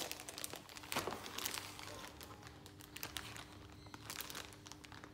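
Clear plastic bag holding round aquarium filter wool pads crinkling as it is handled: irregular crackly rustles, loudest in the first second and a half, then fainter.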